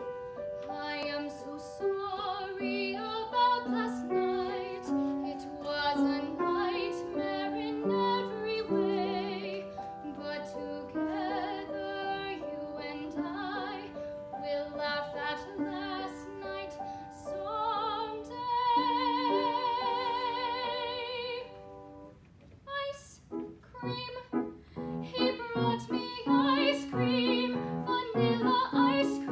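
A young female classical singer sings with wide vibrato to piano accompaniment. About two-thirds of the way through she holds one long, loud note, then breaks off briefly before voice and piano start again.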